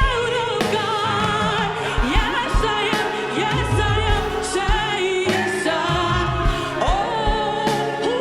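Gospel praise-and-worship music: several voices singing over a live band with bass and a steady drum beat.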